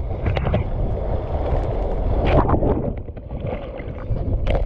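Whitewater from a breaking shore wave rushing and churning over the sand, with splashes and water buffeting the camera's microphone at water level. The rush eases a little about three seconds in.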